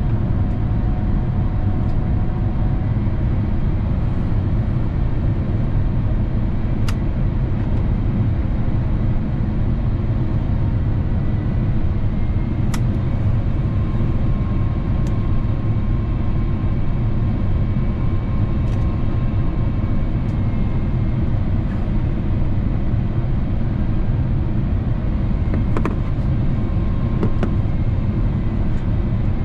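Steady cabin noise of an Airbus A350-900 on approach: a low, even rumble of engine and airflow heard from a window seat beside the Rolls-Royce Trent XWB engine, with a few faint clicks.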